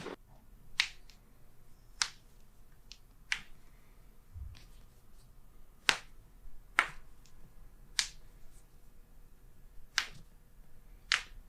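A series of about eight sharp, dry clicks during a chiropractic adjustment, spaced one to two and a half seconds apart, with the adjustment cracks landing one after another.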